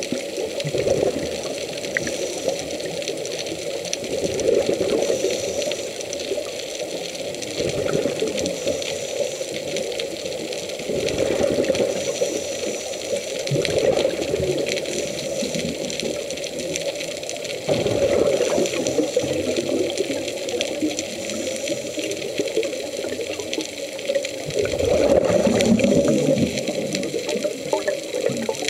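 A diver's exhaled bubbles heard underwater, muffled through the camera housing: a steady watery hiss with a rush of bubbling that swells up every several seconds.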